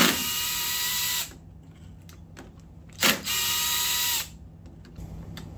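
Cordless impact driver spinning out the clutch pressure-plate bolts of a 1989 Suzuki LT250R engine: two bursts of rapid hammering with a steady motor whine, about a second each, the second about three seconds in.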